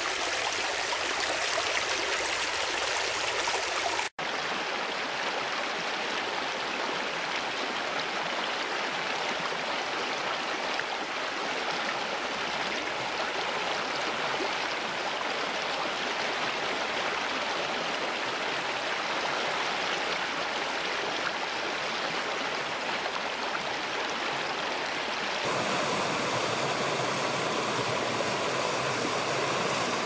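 Stream water rushing steadily over rocks, an even splashing hiss. It drops out for an instant about four seconds in, and near the end it turns fuller and deeper.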